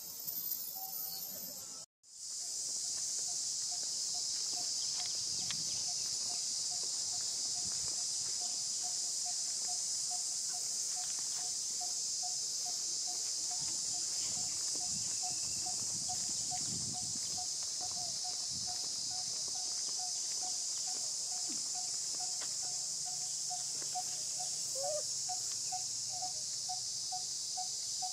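Insect chorus outdoors: a steady high buzz, with a short note repeating a couple of times a second beneath it. It cuts in about two seconds in after a brief dropout.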